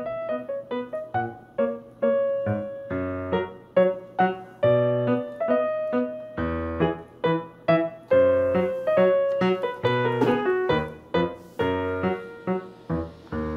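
Keyboard music: a melody of struck notes, about two or three a second, each dying away, over low bass notes.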